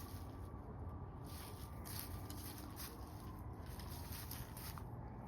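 Faint, steady low rumble of outdoor background noise with soft scattered rustles and taps.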